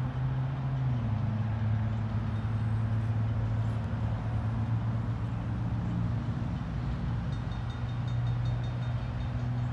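Diesel locomotive engine running out of sight, a deep steady drone; its engine speed drops about a second in and rises again around seven seconds in.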